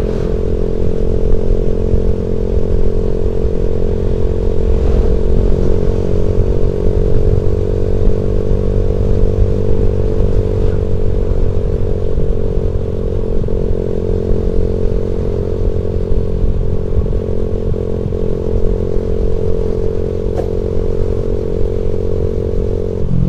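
Motorcycle engine running steadily at speed, with a dense low rumble underneath. Its pitch rises slightly about five seconds in and then holds.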